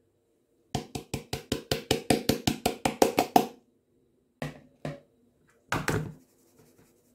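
Rapid, even tapping on a wire-mesh flour sieve resting on a mixing bowl, about six taps a second, with a faint metallic ring underneath, as flour is knocked through it. After that come a few slower, separate knocks as the sieve is handled.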